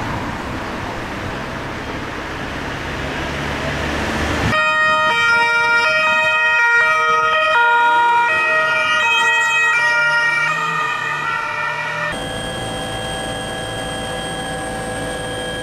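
Street traffic noise. About four and a half seconds in it cuts suddenly to loud, sustained electronic tones that step from pitch to pitch. After about twelve seconds these settle into one steady held chord.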